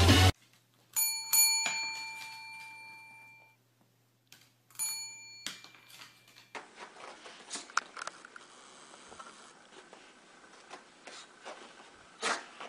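A service desk bell is rung four times, in two quick pairs, and each ding rings on and fades. After that comes faint scuffling with a sharper knock near the end.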